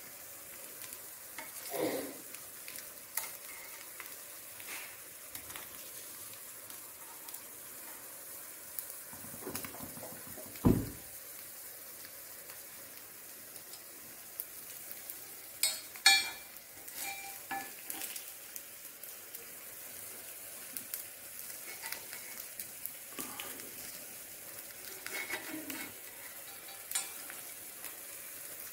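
Small idli-batter appams frying in oil in a multi-cavity appam (paniyaram) pan with a faint, steady sizzle, while a steel spoon scrapes and turns them in their cups. A dull knock comes about ten seconds in, and a few ringing metal clinks a few seconds later.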